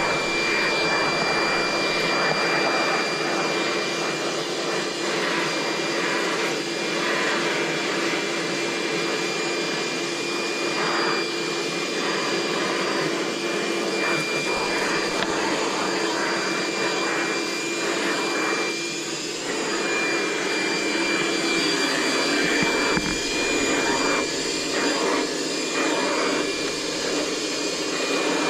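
DeWalt DCV581H 18/20-volt cordless/corded wet-dry vacuum running steadily, a rushing of air with a steady high whine, its sound shifting slightly now and then as the nozzle is worked over a rug.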